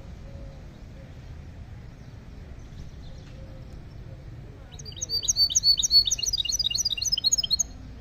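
Caged saffron finch (misto) singing one burst of rapid, repeated high notes that starts about halfway through and lasts about three seconds, over a low steady background rumble.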